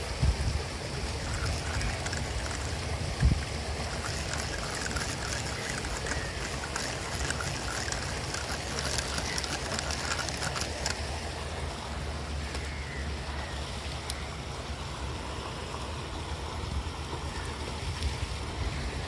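Outdoor background: a steady low rumble with a faint hiss above it, and a single short knock about three seconds in.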